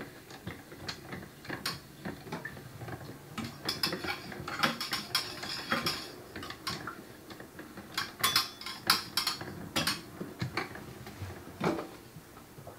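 Plastic film-developing tank being agitated by twisting the film reel inside through the lid: a run of small plastic clicks and rattles in uneven bursts. This is the periodic agitation of the developer during development.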